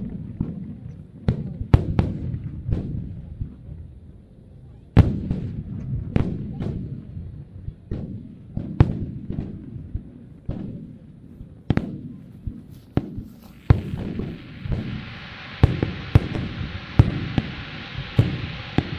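Aerial fireworks shells bursting in quick succession, many sharp bangs, each trailed by a low rumbling echo. About fourteen seconds in, a steady hiss sets in beneath the bangs.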